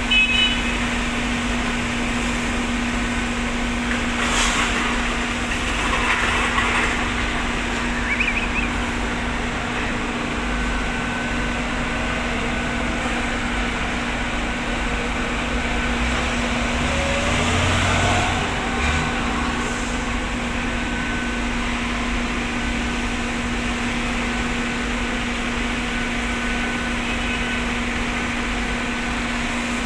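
Heavy vehicle engines running, a dump truck and a forklift among them, over a steady machinery hum. A little past halfway an engine revs up briefly.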